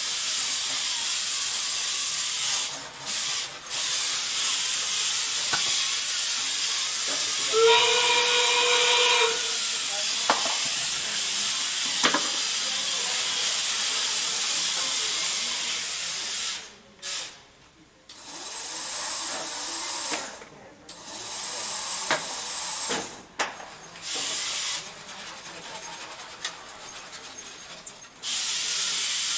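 Competition robot's electric drive motors and mechanisms whirring as a steady hiss that cuts out and comes back several times in the second half as the robot stops and starts. A short steady tone lasts about a second and a half, about eight seconds in.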